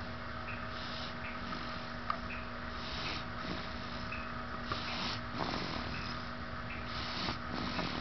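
Snoring: slow, noisy breaths about every two seconds, four in all, over a steady background hum.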